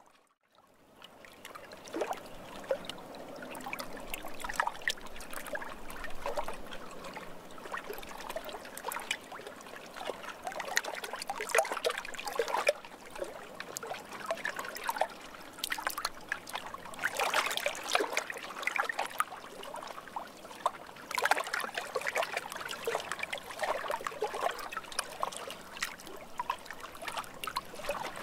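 Water trickling and splashing gently: a steady run of small, irregular drips and plinks. It fades in after a brief gap at the very start.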